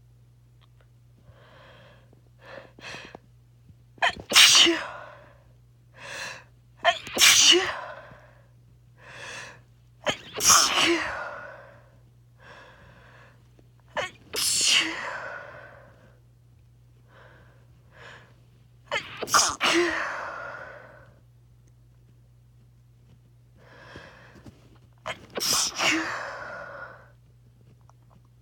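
A person sneezing six times, a few seconds apart, each loud sneeze led by short catching in-breaths.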